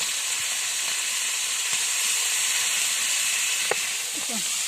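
Fish frying in hot oil over a campfire: a steady sizzle.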